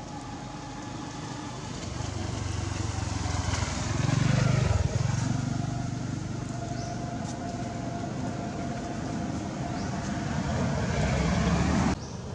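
Motor vehicle engine running as it passes close by, loudest about four to five seconds in, with a second swell near the end before the sound cuts off suddenly.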